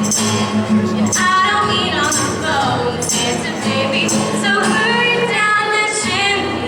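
A song with singing voices over instrumental accompaniment and jingling percussion.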